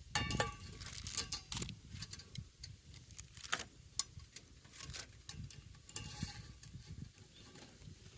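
Irregular clicks and light knocks, a few sharper ones near the start and a little after three seconds, over a steady low rumble.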